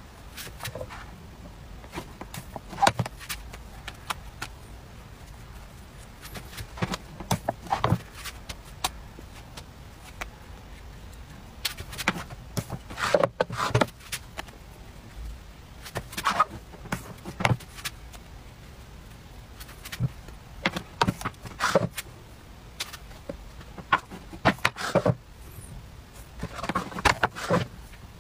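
Irregular clusters of light clicks, taps and knocks from handling a dip-style electric crepe maker and peeling thin crepe wrappers onto a wooden board.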